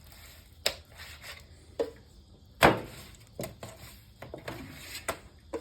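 A handful of sharp, irregular knocks and clatters, about seven, the loudest a little under three seconds in, as pieces of cut chicken are handled and rubbed with spice marinade in a bowl.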